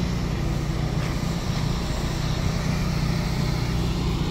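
Hyundai N Vision 74 hydrogen fuel-cell electric prototype rolling slowly, giving a steady low hum.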